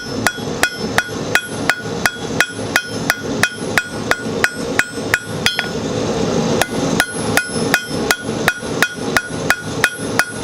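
Hand hammer striking hot steel bar on an anvil, about three blows a second, each with a bright ring. The smith is breaking (chamfering) the corners of the bar. The blows stop briefly a little past the middle, then carry on at the same pace.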